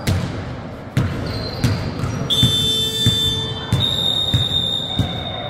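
A basketball dribbling on an indoor court, about one bounce every two-thirds of a second. A high steady tone comes in a little over two seconds in and holds.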